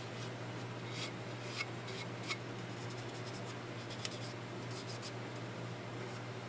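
Fingers rubbing gun oil over the metal of a stripped pistol frame, with a few faint handling clicks, over a steady low hum.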